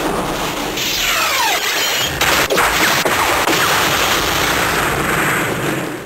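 Suiseiken Nagare toy sword's electronic finisher sound effect playing after a trigger press: a long, loud, noisy crashing rush with a falling sweep about a second in and a sharp hit about two seconds in.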